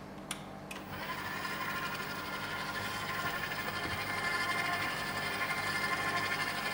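Two clicks, then a KitchenAid Artisan stand mixer's motor starts about a second in and runs steadily on its slowest speed with a steady whine. Its flat beater turns flour and liquid into batter in the steel bowl.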